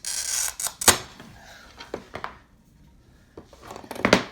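Glass cutter scoring a sheet of glass: a steady high hiss that stops with a sharp click about a second in. A few light clicks follow, then a louder knock near the end.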